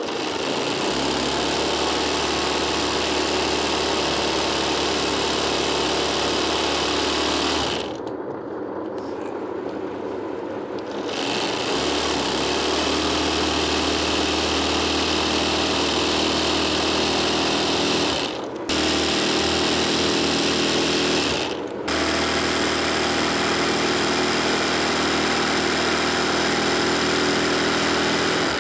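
Sewing machine running fast for free-hand kadai embroidery, the needle stitching in a rapid steady buzz. It drops away for about three seconds about a third of the way in, and stops twice more for a moment later on.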